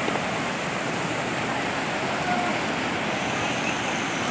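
Rushing water of a fast-flowing stream, a steady, even rush.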